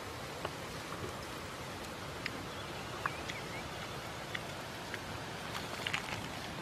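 Steady outdoor background hiss, with scattered short ticks and chirps and a quick cluster of them near the end.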